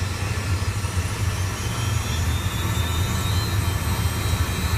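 Yak-40's Ivchenko AI-25 turbofan engine running on the ground, heard from inside the cockpit: a steady low rumble with a faint whine that rises in pitch about halfway through as the throttle is advanced during a post-maintenance engine run-up.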